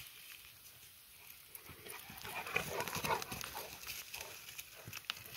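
A St. Bernard running along a dirt forest trail: irregular footfalls and the dog's breathing, loudest about two to three seconds in.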